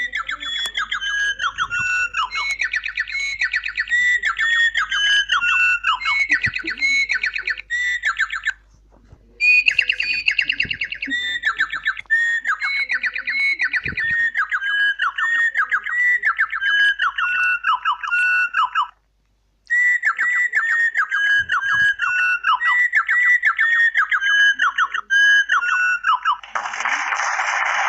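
A small bird calls over and over in a long run of short whistled notes, about two a second, each note bending down in pitch. The run pauses briefly twice, and a steady hiss comes in near the end.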